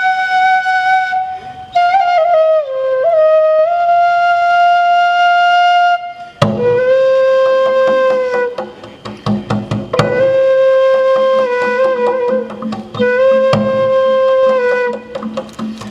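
Flute melody of long held notes that slide in pitch, joined about six seconds in by drum strokes under a lower phrase that repeats every couple of seconds.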